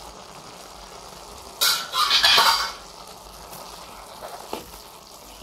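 Sprouted moth beans simmering in a kadhai with a steady low sizzle, a spatula stirring and scraping through them for about a second near the middle, with a couple of light knocks later.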